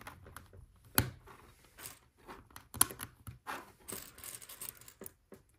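LEGO pieces being handled and pressed together: scattered sharp plastic clicks, clearest about a second in and again near three seconds, among soft rustling.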